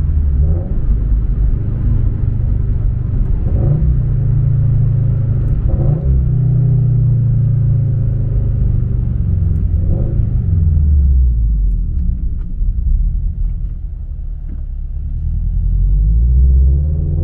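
Subaru BRZ's flat-four engine and MAperformance 3-inch catback exhaust heard from inside the cabin while driving: a low rumble whose pitch rises and falls several times, easing off around two-thirds of the way through, then building again near the end.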